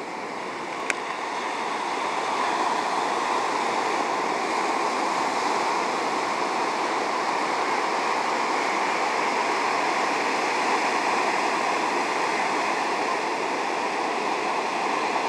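Steady roar of sea surf breaking along the shore, with one sharp click about a second in.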